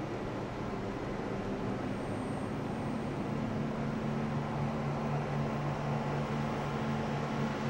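Steady hiss with a low hum of equipment cooling fans and air handling in a broadcast control room; the hum grows stronger about two to three seconds in.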